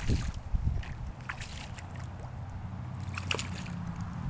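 Hooked largemouth-type bass thrashing and splashing at the water surface, with a burst of splashing in the first second, then smaller sloshes and drips.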